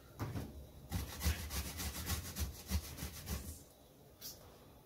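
Tomato being grated on a stainless steel box grater: quick, repeated rasping strokes that stop about three and a half seconds in, with one more stroke near the end.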